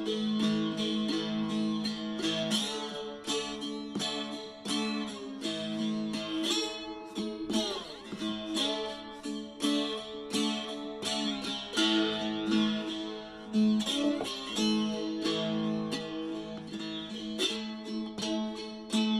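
Cigar box guitar built from a Madura cigar box, played by hand: a quick run of picked notes over a low note that rings steadily underneath, with a few notes sliding in pitch.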